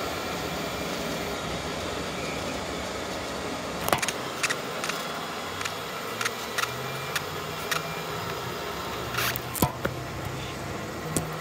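Handling noise from a camera being picked up and moved: a string of sharp clicks and knocks starting about four seconds in, loudest near the start of the string and again a little before the end. Under it a steady mechanical rushing noise runs on.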